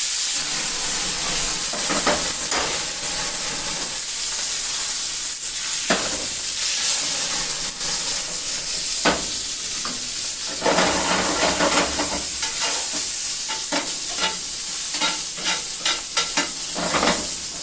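Chilies sizzling in hot oil in a frying pan, a steady frying hiss, with a utensil stirring and scraping them now and then and more often in the second half.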